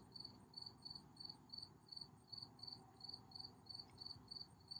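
Faint, steady insect chirping in an even rhythm of about five high chirps a second.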